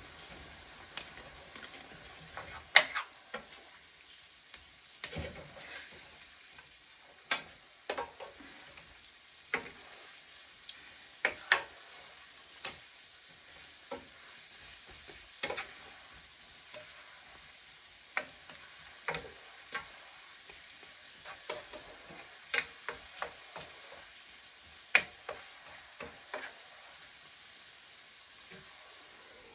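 A utensil stirring noodles and vegetables in a stainless steel pan on the stove, knocking and scraping against the pan at irregular moments over a steady sizzle from the hot pan.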